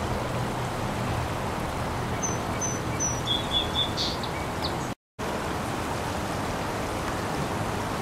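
Steady outdoor background noise with a few short, high chirps from a small bird between about two and three and a half seconds in. The sound cuts out for a moment about five seconds in.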